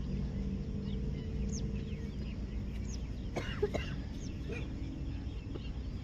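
Birds chirping outdoors in scattered short calls, a little busier about halfway through, over a steady low background rumble.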